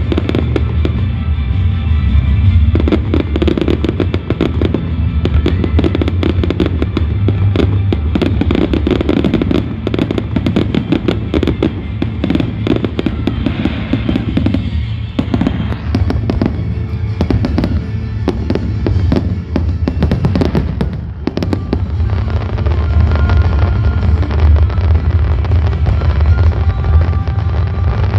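Fireworks display: many shells bursting and crackling in quick succession, with music playing underneath.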